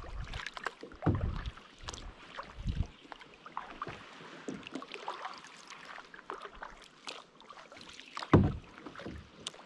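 Kayak paddling: water splashing and dripping from paddle strokes, with a few dull thumps, the loudest about eight seconds in.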